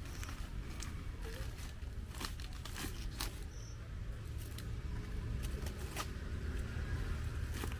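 Banana leaves rustling and crackling as they are handled and folded over a steaming pot: irregular light clicks over a low steady rumble.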